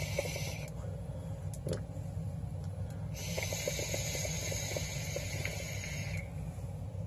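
E-cigarette atomizer being drawn on: a brief puff at the start, then about three seconds in, a three-second hiss of air through the firing coil with faint crackling of e-liquid on the coil.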